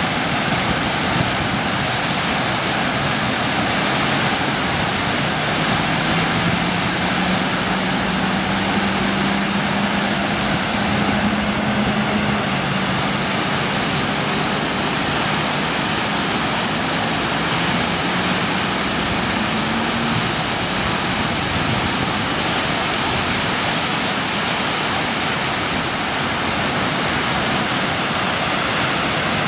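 Whitewater of a river standing wave rushing steadily, a loud even roar of churning water. A faint low hum joins it for several seconds in the middle.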